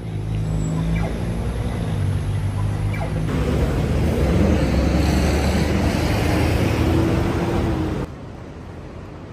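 Road traffic: a heavy vehicle's engine running with a steady low hum. About 3 s in it gives way to louder traffic noise with a low rumble, which cuts off abruptly about 8 s in.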